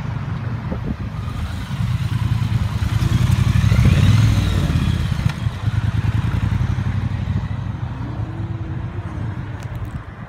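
Triumph motorcycle engine running as the bike pulls away under throttle, loudest about four seconds in, then fading as it rides off.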